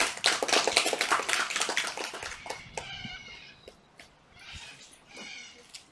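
Scattered applause from a group of children, dying away after about two and a half seconds, followed by a few short high-pitched calls.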